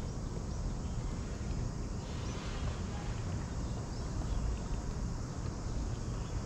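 Steady low outdoor background rumble, with no distinct events.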